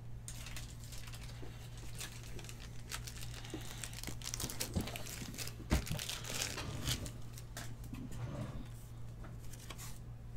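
Crinkling and rustling of plastic penny card sleeves and their wrapper being handled, with scattered small clicks and one sharper knock about six seconds in.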